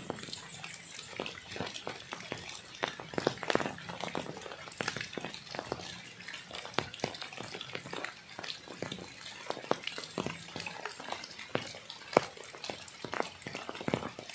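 Rain falling, heard as a dense, irregular crackle of sharp drop taps close by, with one louder tap about twelve seconds in.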